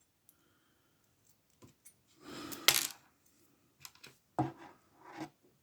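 Small metal clicks and scrapes of a brass-and-steel padlock being taken apart as its screw is removed, with one sharper metallic clink in the middle.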